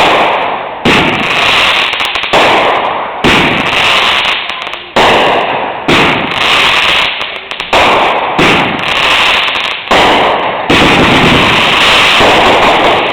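Consumer fireworks going off in quick succession, about a dozen sharp bangs roughly a second apart, each one fading away before the next.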